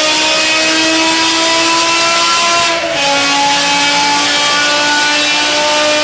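BMW M5 engine under hard acceleration, its pitch slowly climbing; about three seconds in the pitch drops with a brief break at a gearshift, then climbs again.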